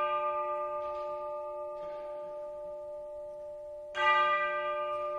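A deep bell from the orchestra's percussion, struck once and left to ring, then struck again about four seconds in on the same pitch, each stroke fading slowly.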